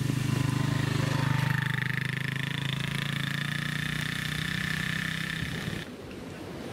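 Small motorbike engine running steadily as the bike rides off. It cuts off suddenly near the end, where the hiss of surf takes over.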